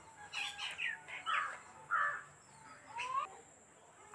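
Crows cawing faintly, about six short, separate calls, a few of them rising in pitch.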